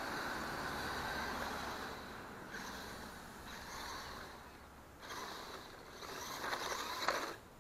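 WLtoys Crawler King 6x6 RC truck driving on asphalt: a faint whir of its small electric motor and gears with tyre noise, growing louder in uneven surges in the last couple of seconds as it comes close.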